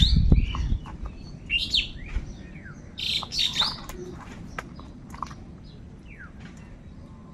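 Crows cawing in repeated bursts. The calls are loudest in the first second, and again at about two and three and a half seconds in, then thin to fainter scattered calls. A brief low rumble sits under the opening second.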